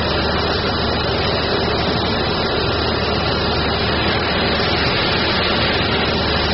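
OMAX waterjet cutter's high-pressure water jet running through the steel plate with a loud, steady hiss.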